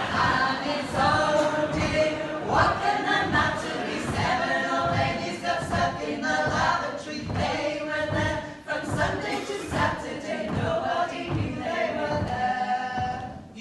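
A group of women singing a comic folk song together a cappella, in harmony. The singing stops right at the end.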